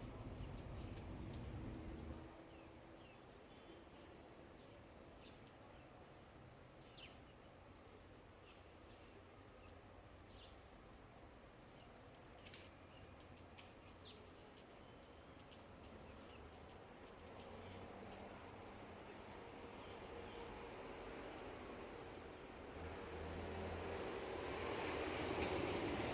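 Faint garden birdsong: scattered short chirps over a steady high tick repeating about one and a half times a second. A low rumbling noise swells up over the last several seconds and becomes the loudest sound near the end.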